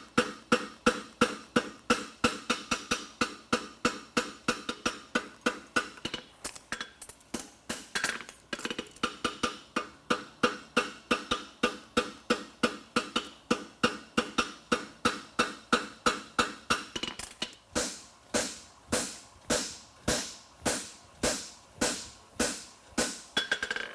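Farrier's hammer striking a steel horseshoe on an anvil in a steady rhythm, about three ringing blows a second, then slower, heavier blows about two a second for the last several seconds.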